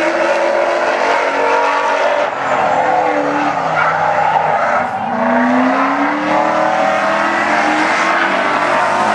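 A 1977 Chevrolet Camaro street-stock race car's engine running hard on a qualifying lap of a short oval, the pitch dropping and climbing again as it lifts for a turn and accelerates out, with a clear rise about five seconds in.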